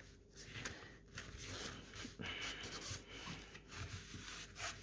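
Hands rubbing and smoothing a printed cotton cross-stitch canvas flat on a table: faint, soft brushing strokes of skin on fabric, several times.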